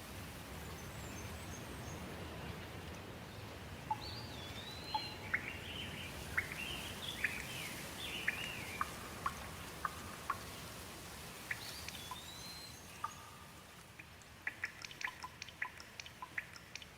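Steady rain hiss with a songbird singing short whistled, sliding phrases from about four seconds in. Near the end the rain dies down and a quick run of sharp drips takes over.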